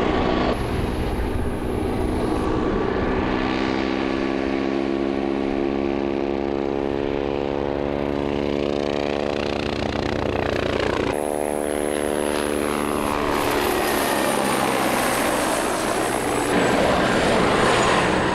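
Westland Wasp helicopter in flight, manoeuvring overhead: the steady beat of its rotors with the high whine of its Rolls-Royce Nimbus turboshaft engine, the pitch slowly sliding up and down as it passes and turns. The sound shifts abruptly about eleven seconds in.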